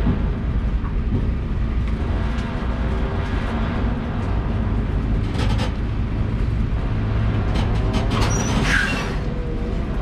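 Semi-truck and semitrailer rolling slowly, heard from under the trailer beside its self-steering axle: a steady low engine and road rumble with a wavering hum, a few clicks, and a short squeal near the end.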